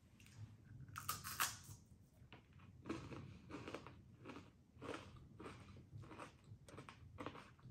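A person biting into and chewing crunchy caramel-coated corn puffs: one crisp bite about a second in, then steady crunching chews, about two a second.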